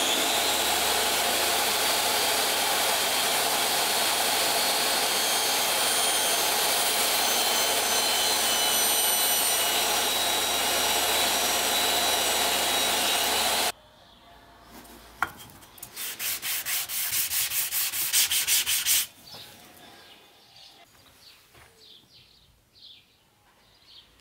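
Table saw motor spinning up with a rising whine, then running steadily while cutting a groove in a pine board, and cutting off suddenly about fourteen seconds in. A few seconds later comes a short run of quick rhythmic rubbing strokes, about four a second and growing louder.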